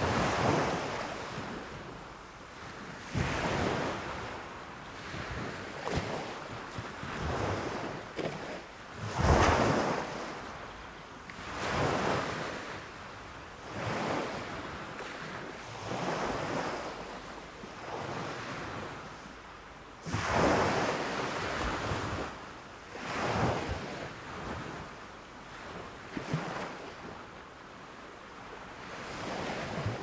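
Small surf breaking and foaming up a sandy beach. The rush of water swells and falls away every two to three seconds, with the biggest breaks about nine and twenty seconds in.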